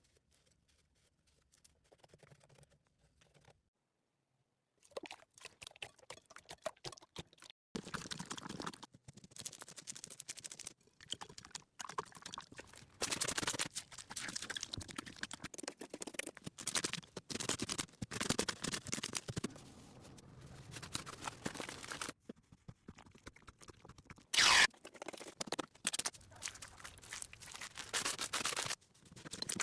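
Slime being squished and pressed by hand, giving dense, irregular sticky crackles and little pops, starting after a few near-silent seconds and with one short louder burst near the end.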